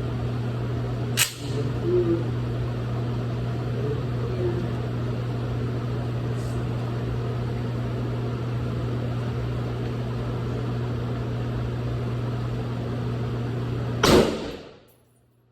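A steady low mechanical hum runs throughout, with a sharp click about a second in. Near the end comes one loud bang with a short ring-out, after which the sound cuts away abruptly.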